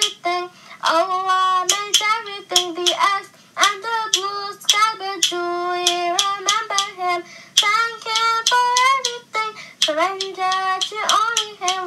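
A child singing an Islamic nasheed in a high voice, with sharp clap-like beats.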